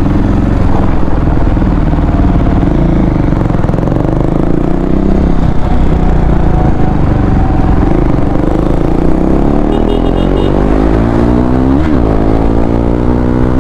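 KTM Duke 390's single-cylinder engine running steadily while riding, with heavy wind noise on the microphone. Near the end the engine tones sweep in pitch.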